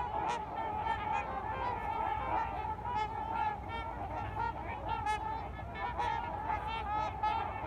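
A large flock of trumpeter swans calling on the water: many overlapping honking calls in a continuous chorus.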